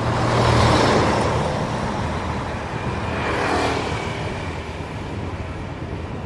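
Road vehicles passing by: a wide noise that swells and fades about a second in, then swells again around three and a half seconds in.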